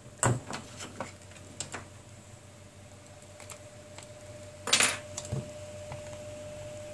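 Small clicks and taps of tweezers and fingers handling a tablet's plastic frame and touchscreen ribbon cable, with a sharp click about a quarter second in and a short scrape just before five seconds.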